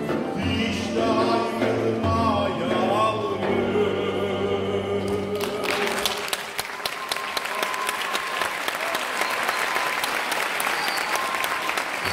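Mixed choir with male and female soloists, accompanied by cello and guitars, sings the last phrase of a traditional Cypriot song and ends on a held chord. About halfway through, the music stops and audience applause breaks out and keeps going.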